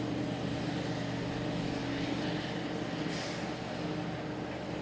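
Large mining excavator running steadily, a low machine hum with a brief hiss about three seconds in.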